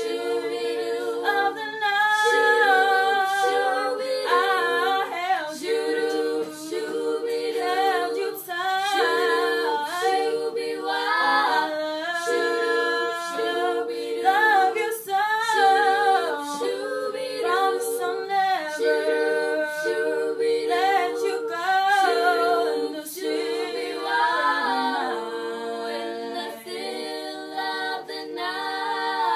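A small group of young girls singing a song together without accompaniment, their voices gliding from note to note in a steady flowing melody.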